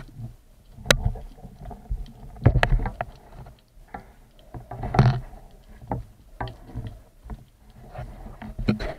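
Underwater handling noise: irregular clicks, knocks and low thumps as the diver's gloved hand grips the speared fish and speargun. There is a sharp click about a second in and heavier thumps halfway and later on.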